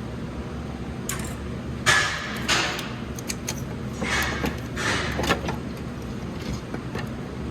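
A few short scrapes and clatters of metal parts being wiggled and worked free in a car's engine bay, over a steady low hum.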